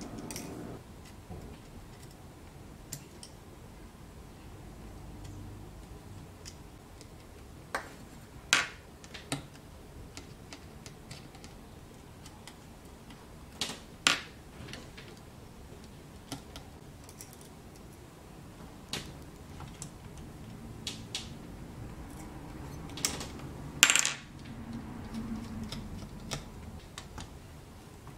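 Scattered small clicks and light metallic taps of tiny metal parts and a precision screwdriver on an opened iPhone 7, as its battery connector bracket is fitted and screwed down. There are a dozen or so of them, a few sharper than the rest.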